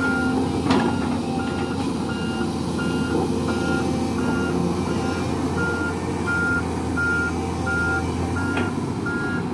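Volvo EW205D wheeled excavator's diesel engine running under its travel alarm, which beeps steadily about one and a half times a second as the machine drives over rubble. A sharp metallic clank comes about a second in, and another near the end.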